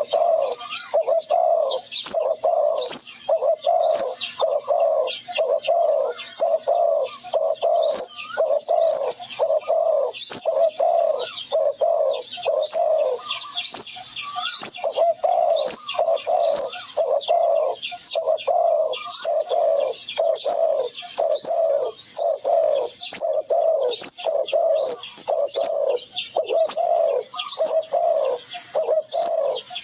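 Birds calling without a break: a steady run of low cooing notes, about two a second, with quick high chirps that drop in pitch over them.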